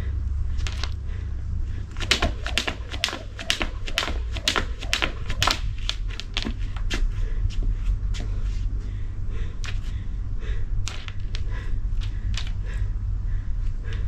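Skipping rope in use: the rope slaps the ground in a quick, even rhythm of about three to four strikes a second, loudest from about two to six seconds in, then fainter. A steady low rumble runs underneath.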